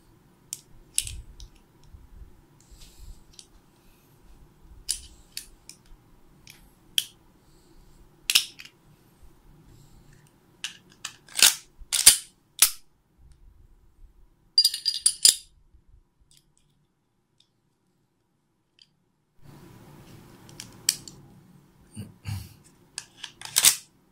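Glock 26 pistol parts being handled and reassembled: scattered clicks and clacks of the steel slide and barrel against the polymer frame. A brief metallic ring comes about halfway, and a quick run of sharp clacks near the end as a slide is fitted back onto its frame.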